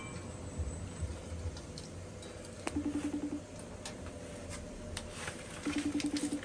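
Faint clinks of a metal spatula and pan over a low steady hum. Two short buzzing tones that pulse rapidly come about three seconds in and again near the end.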